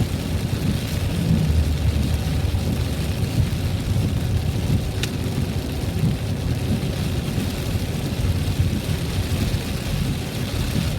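Steady rumble of a car driving in the rain, heard from inside the cabin: road noise with rain on the car. A single short click sounds about five seconds in.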